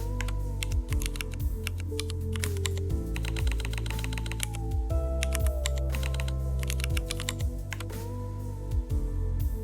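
Computer keyboard typing in several quick bursts of keystrokes, over background music.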